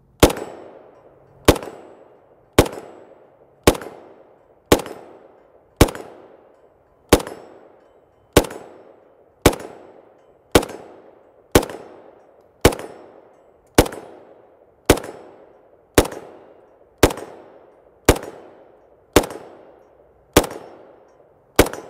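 Semi-automatic FN FNC rifle firing 5.56×45 M193 ball through its muzzle brake: about twenty single shots at a steady pace of roughly one a second, each followed by a short echo. This empties a full 20-round magazine.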